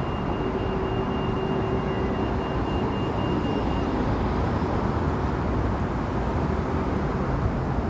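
Steady outdoor rumbling noise, strongest in the low range, with a faint steady hum that fades out about halfway through.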